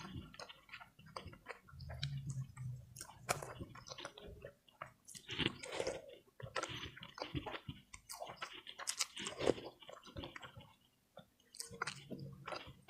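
Close-miked chewing and wet mouth sounds of someone eating a meal of ketupat rice cake with opor ayam chicken and sambal goreng kentang: irregular smacks and clicks throughout.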